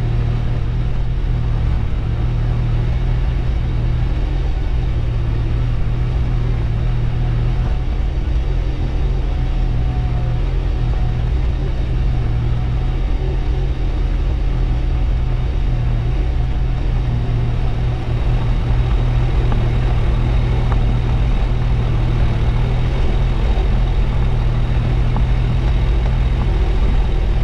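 New Holland TT4.65 tractor's diesel engine running steadily under load while pulling a mounted reversible plough through the soil, getting slightly louder about two-thirds of the way in.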